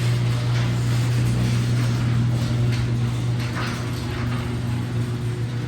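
Liftmaster 8165 chain-drive garage door opener running steadily while closing the door: a constant motor hum with light clatters from the chain and door.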